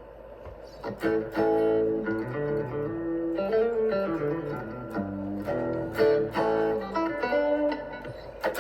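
Guitar music: plucked notes and chords, starting about a second in after a few faint clicks.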